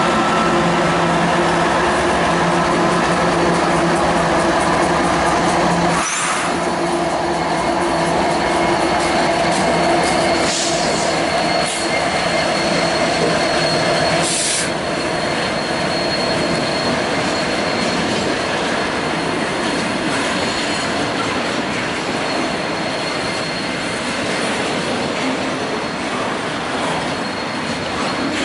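Union Pacific freight train passing close by: the diesel locomotives' engines run with a steady drone that drops away about six seconds in. The steel wheels then roll on the rails with a steady high squeal and a few sharp clanks.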